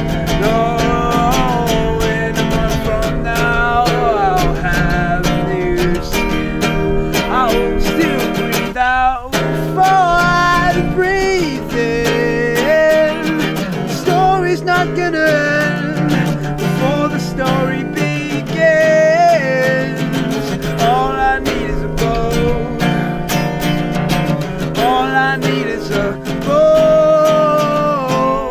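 Acoustic guitar strummed steadily with a man's voice singing a melody over it, with a short break in the strumming about nine seconds in.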